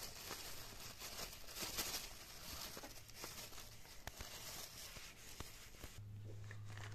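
Thin black plastic bag crinkling and rustling, with small clicks, as raw pork is shaken and pulled out of it. A low steady hum comes in near the end.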